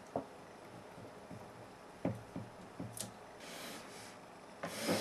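Faint handling noises from stepper motor cables being routed along the frame's threaded rods: a few light taps and clicks, then soft rustling near the end.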